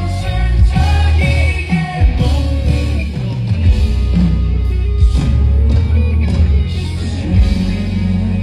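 Live band playing a loud rock song, with drum hits over a heavy bass and singing along.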